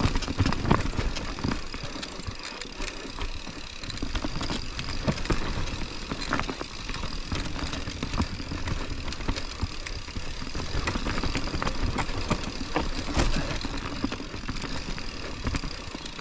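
Mountain bike rolling down a steep dirt trail: steady tyre and drivetrain noise with frequent knocks and rattles as the bike goes over bumps.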